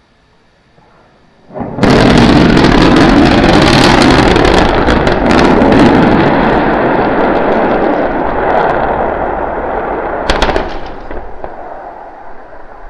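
Starship SN9 prototype crashing and exploding on its landing attempt: a sudden loud blast about two seconds in, then a heavy rumble that slowly dies away, with a sharp crackle near the end.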